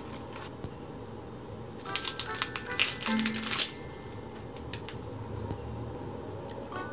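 Foil-lined snack wrapper crinkling and tearing open for about two seconds, starting about two seconds in. Soft background music with a light plinking melody plays underneath.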